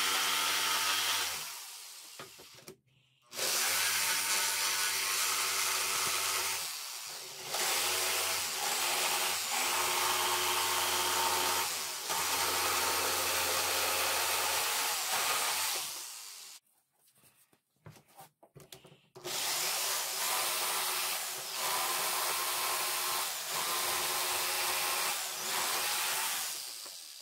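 Corded electric jigsaw cutting through wooden boards, its motor buzz and blade rasp running in several long passes. The saw stops briefly a few times and pauses for about three seconds about two-thirds through before cutting again.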